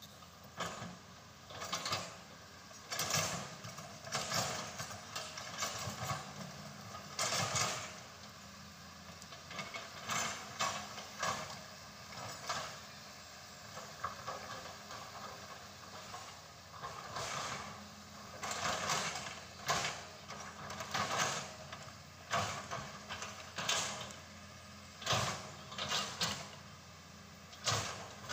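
Hitachi Zaxis 200 excavator working: irregular creaks and clunks from its moving parts every second or two, over a steady low engine sound.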